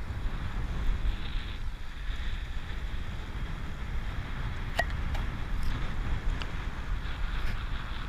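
Wind noise buffeting the microphone of a camera on a moving road bike: a steady low rumble with hiss, and a faint click about five seconds in.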